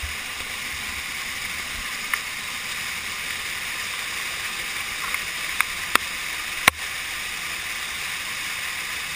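Waterfall rushing as a steady, even noise of falling water, with a few sharp clicks about two, six and seven seconds in.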